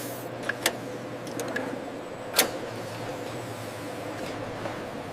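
Bottling-line machinery humming steadily, with a few scattered clicks and one louder click about two and a half seconds in.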